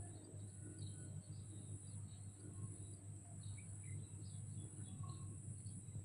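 Faint, scattered short bird chirps over a steady high-pitched drone and a low hum.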